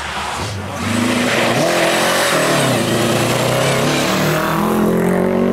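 Historic rally car's engine revving hard, its pitch rising and falling several times.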